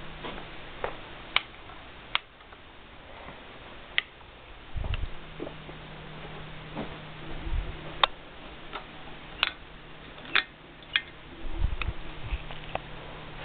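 Ceiling fan running with a low steady hum, broken by irregular sharp clicks and a few dull low thumps.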